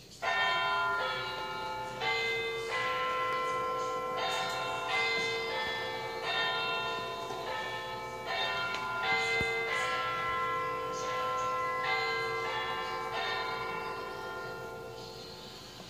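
Grandfather clock chiming the hour: a melody of bell notes struck one after another, about one a second, each ringing on into the next, fading slowly near the end.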